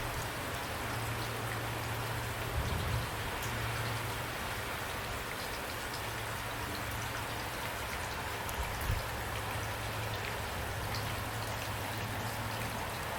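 Steady rain falling, a dense even hiss of drops with a steady low rumble beneath. Two brief low thumps come about two and a half and nine seconds in.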